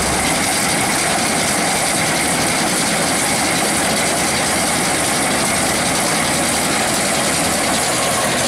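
LOVOL 130 rice combine harvester running, its electronic-injection diesel engine and machinery making a loud, steady, dense mechanical noise without a break.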